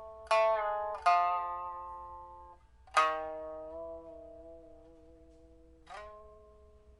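Solo pipa playing: four plucked chords, the third the loudest, each left ringing and dying away, with pitch bends and vibrato on the held notes. The pipa, a 2006 Cao Weidong instrument with a Dalbergia oliveri back, has just been repaired with a new soundboard and new frets, and has a steel first string and copper strings on the other three.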